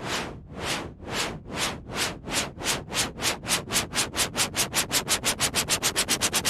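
Synthesized white-noise sweeps imitating a steam train chugging. Each is a short swell and fade of hiss, and they repeat faster and faster, from about two a second to about seven a second, like a locomotive pulling away.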